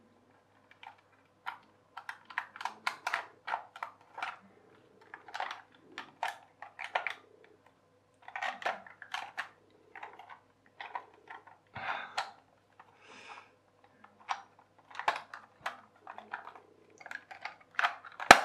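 Clear plastic toy-train gearbox housing and small plastic gears being handled and fitted back together: irregular light clicks, knocks and rattles of hard plastic, with one sharp, louder click near the end.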